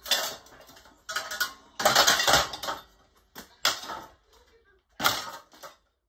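An HPM ceiling fan's bent blades and motor housing clattering and banging on a concrete floor as the fan is shoved about: a run of sharp knocks, loudest in a cluster about two seconds in.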